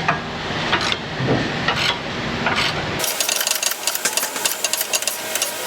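Rapid metallic clicking of a wrench working a sway bar link nut on rusty threads, starting abruptly about three seconds in, after a few scattered clanks of tools.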